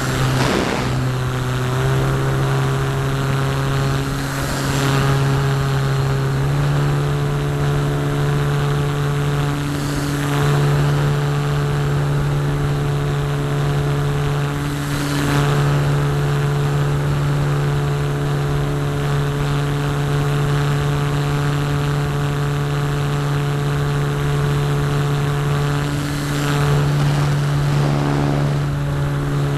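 Parkzone Radian's Firepower 10 brushless electric motor and propeller running under power, heard from a camera mounted on the plane: a loud, steady drone with small shifts in pitch.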